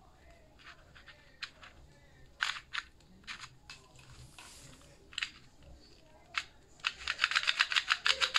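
Plastic 2x2 Rubik's cube being turned by hand: scattered single clicks of separate turns, then a quick run of clicking turns, about ten a second, near the end.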